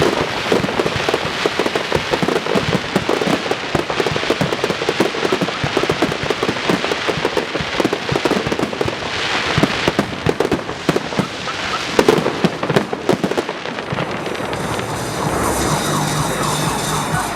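Fireworks salute: a dense, rapid crackle of many bursting shells and sharp reports. It thins out about fourteen seconds in, leaving a steadier hum with faint tones.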